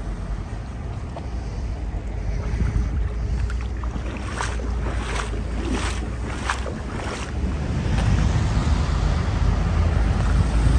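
Wind buffeting the microphone, a steady low rumble, with a run of about five short rasping swishes roughly two-thirds of a second apart in the middle.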